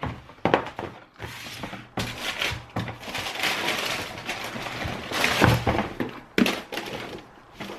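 Cardboard shoebox handled and its lid lifted off with a few knocks, then wrapping paper rustling and crinkling as a sneaker is pulled out of the box, with another couple of knocks near the end.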